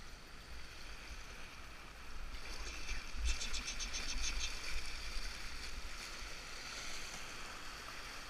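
Fast river water rushing through a riffle around a canoe, with splashing that gets louder about two seconds in and is busiest a second or two later.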